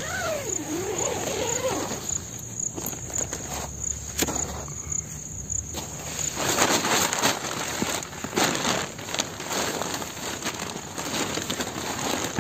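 Insects chirping in a steady, pulsing high trill, with rustling of a plastic tent groundsheet and a foam sleeping mat being handled and unrolled, busier in the second half. A short wavering call sounds at the start.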